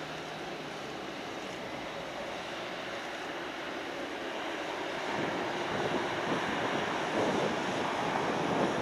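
Jet airliner's engines at takeoff power during the takeoff roll and liftoff: a steady rushing roar that grows louder and rougher, with crackle, from about halfway through.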